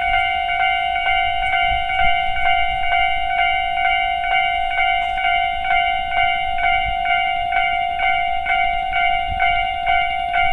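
Japanese electronic level-crossing alarm sounding its standard tone: a steady, evenly repeated ringing at about three strikes a second.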